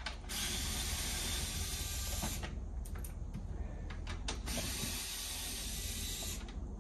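A power tool run twice for about two seconds each, a steady hissing whir, backing out the 7mm bolts under a C7 Corvette's front bumper.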